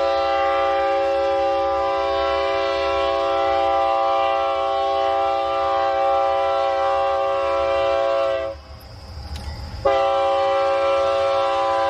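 Freight train's locomotive air horn sounding one long chord-like blast of about eight and a half seconds, stopping for about a second, then sounding again. A low rumble runs underneath.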